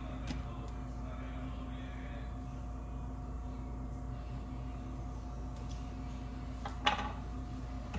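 Steady low electrical hum with a few faint steady tones. A light click comes near the start and one brief, sharper and louder sound about seven seconds in, from handling a cookie piece and its plastic wrapper.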